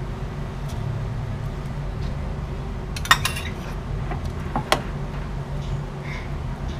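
Metal spoon clinking against a cooking pot: one sharp clink about three seconds in and two lighter ones a second and a half later, over a steady low hum.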